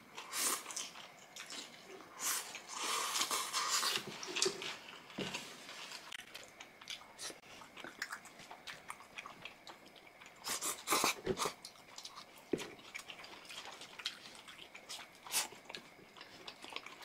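Close-miked eating: crunchy bites and chewing of sauced fried chicken, with scattered sharp clicks, busiest in the first few seconds and again about ten seconds in.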